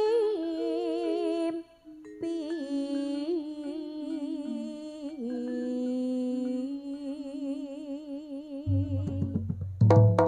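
Javanese jaranan dance music: a melody of long held, wavering notes, sung or played, with a low drum beat coming in near the end.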